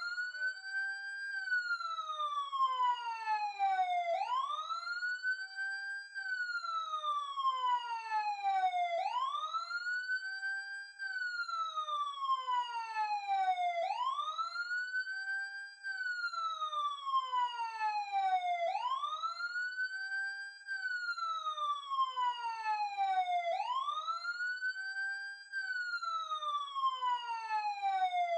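Emergency siren wailing in a repeating cycle about every five seconds: a quick rise in pitch, a brief hold at the top, then a slow steady fall, about six cycles in a row.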